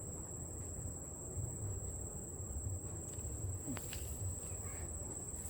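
An insect trilling steadily on one high, thin pitch, over a low rumble. There are a couple of faint clicks about two-thirds of the way in.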